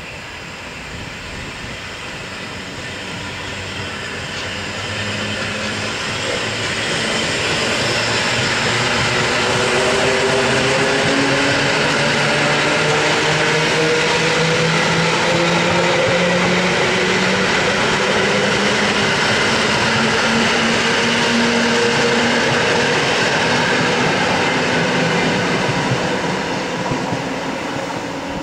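EN57-series electric multiple unit accelerating past: traction motors whine, climbing in pitch, over wheel-and-rail rumble. It grows louder over the first ten seconds, holds, and fades near the end.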